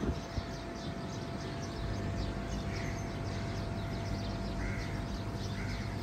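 Many small birds chirping in quick, high notes, with a few crow caws about three seconds in and twice near the end, over a steady low background rumble.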